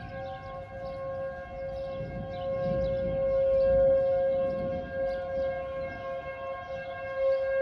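Outdoor civil defense siren sounding for a tornado warning, holding a steady, chord-like tone. A low rumble swells under it around the middle.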